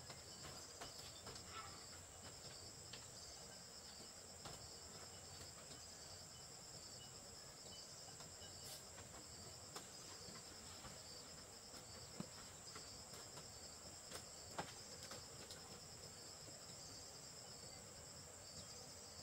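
A steady high-pitched insect chorus, such as crickets, trills without a break. A few faint knocks or taps are heard, the clearest two about twelve and fourteen and a half seconds in.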